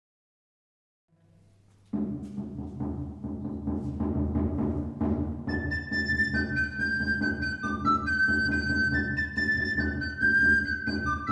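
Renaissance dance music. After a second or two of silence, a drum beat over a low steady drone starts about two seconds in, and a recorder melody enters over it about halfway through.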